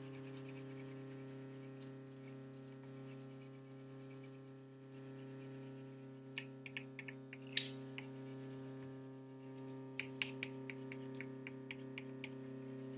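A refrigerator's steady electrical hum, with short scratchy strokes of a crayon coloring on paper laid over it in clusters, about six seconds in and again about ten seconds in.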